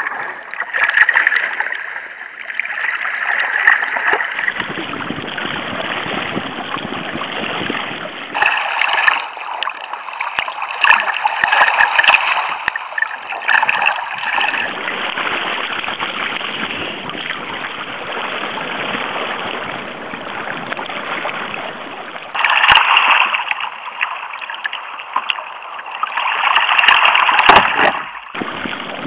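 Choppy sea water splashing and sloshing against a sit-on-top kayak's hull, close to a deck-mounted camera. The sound changes abruptly several times.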